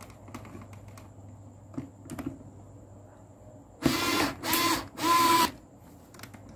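Electric screwdriver tightening the terminal screw that clamps the neutral wire in a circuit breaker's N terminal: three short bursts of motor whine in quick succession, about four seconds in. Faint clicks of the wire being handled come before it.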